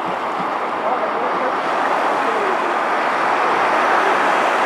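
Small Atlantic waves breaking and washing up onto a sandy beach: a steady rushing surf that grows a little louder near the end.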